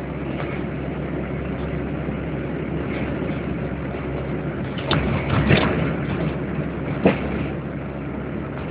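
Car driving, with steady engine and road noise heard from inside the cabin. A few sharp knocks come a little past halfway.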